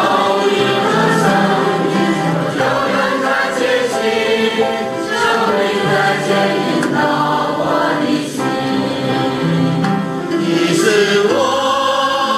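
A choir singing a hymn, several voices in sustained held notes.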